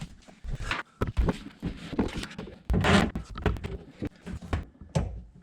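Irregular knocks, clunks and scraping from hands handling parts and tools, with a louder scrape about three seconds in.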